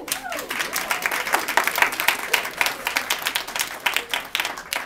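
Audience applauding: many hands clapping in a dense, steady patter, with a voice or two calling out near the start.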